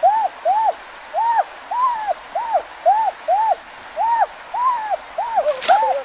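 A bird calling: a repeated series of clear hooting notes, each rising and falling in pitch, about two a second in runs of about five with short gaps. A brief rustle comes near the end.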